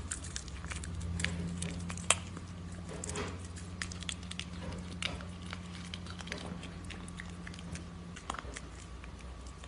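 Black cat biting and chewing a peeled banana: a run of small wet mouth clicks and smacks, the sharpest about two seconds in, over a steady low hum.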